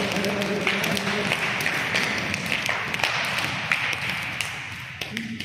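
A group of people clapping and applauding, with voices under it for about the first second; the clapping fades near the end.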